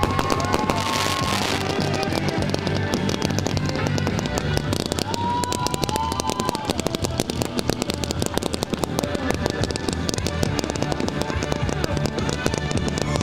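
Fireworks crackling and popping in a rapid, continuous stream, with music playing underneath.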